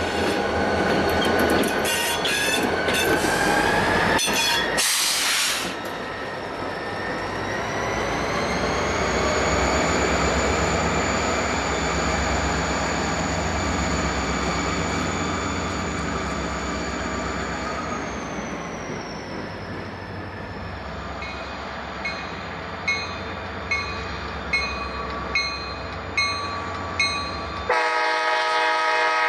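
Ex-BN EMD SD40-2 diesel freight locomotives and their train passing close by: at first the wheels squeal and clatter, then the turbocharged diesels run steadily, with a high whine that rises in pitch about eight seconds in and falls back around eighteen seconds. Later a bell rings in steady strokes, a bit more than one a second, and near the end the locomotive's air horn sounds.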